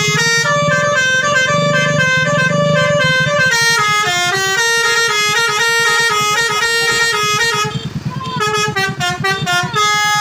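Basuri telolet bus horn playing a melody, its several tones stepping from note to note. A low pulsing sound runs underneath, and about three-quarters of the way through the tune breaks into short, choppy toots.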